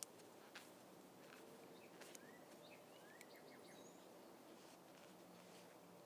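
Near silence, with a few soft clicks and faint short bird chirps from about two to three and a half seconds in.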